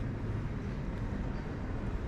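Steady low rumbling background noise with a faint hiss above it, with no distinct events.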